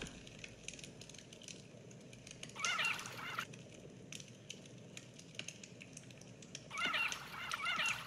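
Campfire crackling, with a bird calling twice, each call under a second or so and warbling in pitch.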